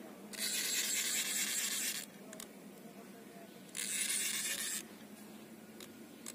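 Spinning fishing reel being cranked in spurts, a whirring retrieve that starts and stops twice, each run lasting one to two seconds.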